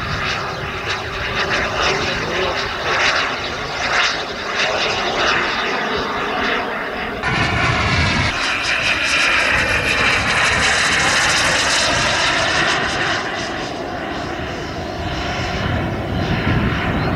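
Turbine engine of a large radio-controlled model jet in flight: a steady jet rush, with wind buffeting the microphone. About seven seconds in the sound changes abruptly, and a high turbine whine swells and bends up and down in pitch as the jet passes, then fades.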